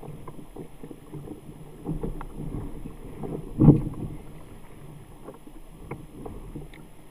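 Water lapping and slapping against a fishing kayak's hull, with light, irregular knocks; one louder slap comes a little past halfway.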